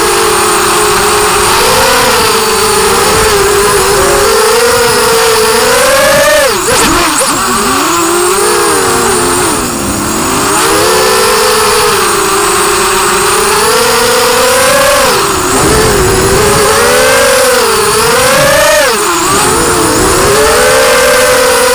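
Four brushless motors and 5x4.5 propellers of a 5-inch FPV racing quadcopter whining in flight, close-up from the onboard camera. The pitch swoops up and down with the throttle and drops sharply twice.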